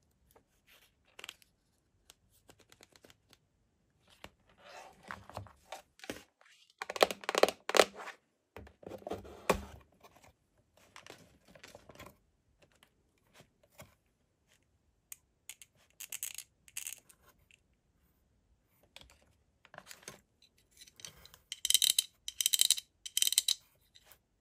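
Unboxing handling noise: paper pages riffling and rustling, then a plastic bag crinkling and hard plastic parts clicking as they are taken out of a cardboard box. The loudest stretches are rustles about seven to ten seconds in and a run of sharp crackles near the end.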